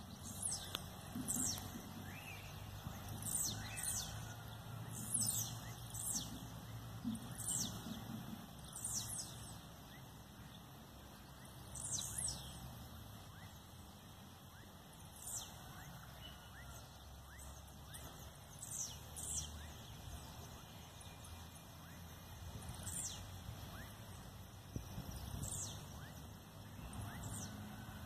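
Male blue-black grassquits (tiziu) giving their territorial song: short, high calls that sweep downward, repeated every second or two with a few longer pauses, some coming in quick pairs.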